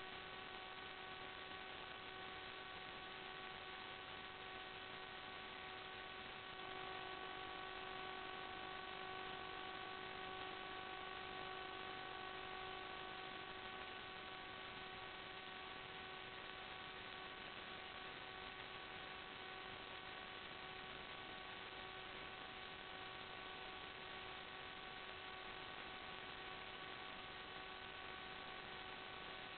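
Steady electrical hum of several evenly spaced tones over a hiss, with a slight change in the tones about seven seconds in. It does not follow the flight.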